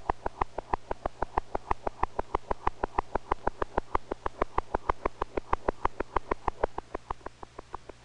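Heartbeat sound demonstrating a bird's fast heartbeat: rapid, even beats at about six and a half a second.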